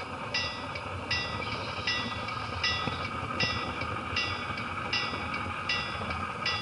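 Model train rolling along the track, a steady low rumble picked up by an action camera riding in a car of the train. Over it, a ringing tone pulses on and off at an even pace, about four pulses every three seconds.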